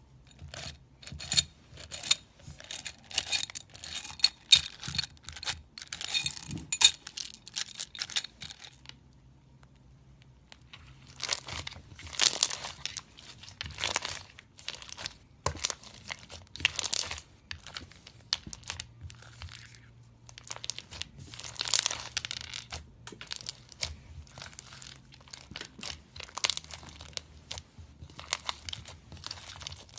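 Slime being squeezed, stretched and pulled apart by hand, giving dense runs of crackling and popping clicks, with a short pause about nine seconds in.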